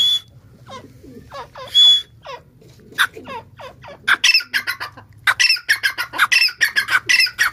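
Grey francolin (tetar) calling: scattered sharp notes and two short loud whistled notes, then from about four seconds in a fast run of repeated harsh notes, several a second.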